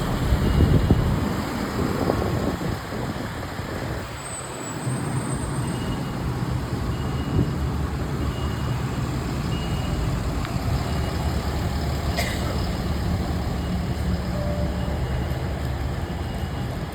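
Downtown street traffic: a heavy vehicle's engine running with a steady low rumble, a high beep repeating about once a second for a few seconds, and a short hiss about twelve seconds in.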